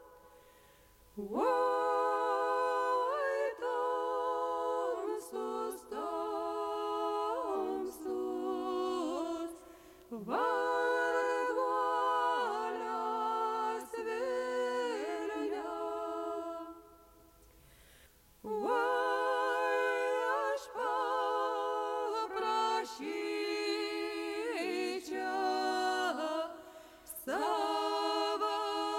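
Lithuanian folk ensemble singing a folk song a cappella, voices together in sung phrases of several seconds with short pauses for breath between them.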